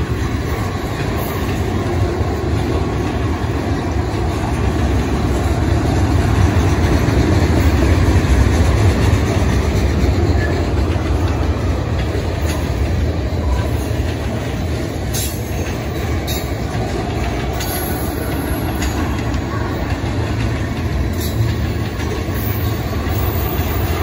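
Train rolling past: a steady, loud rumble of railcars, with a few sharp clicks from the wheels in the second half.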